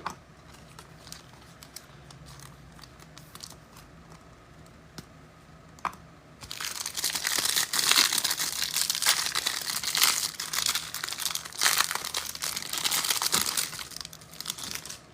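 Trading-card pack wrapper being torn open and crinkled, a loud crackling that starts about six seconds in and goes on for several seconds. Before that there are only a few faint clicks.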